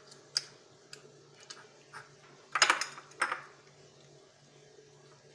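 A utensil clinking and scraping against a glass bowl while the skin is peeled off a cooked tomato: scattered light clicks, with a louder clatter about two and a half to three and a half seconds in.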